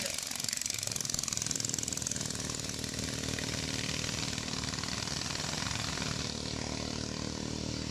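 Motorboat engine running fast with a rapid, even beat, together with the hiss of water spray off the hull; the hiss thins out in the second half as the boat draws away.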